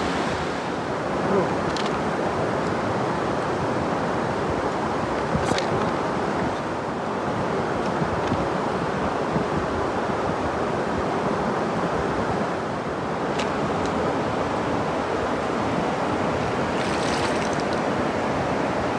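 Steady rushing of a shallow river flowing over rock ledges and small falls, with a few faint clicks.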